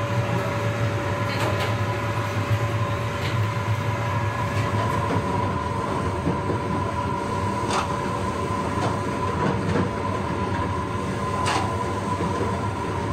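Steady rushing noise of a noodle-shop stove and a large wok of noodles at a rolling boil, with a faint steady hum and a few sharp clinks of utensils on metal.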